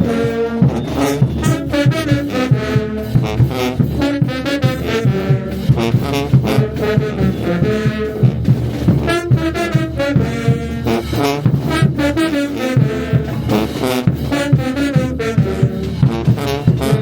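Brass band playing with drums keeping a steady, driving beat: trombones and trumpets carry the melody over the percussion.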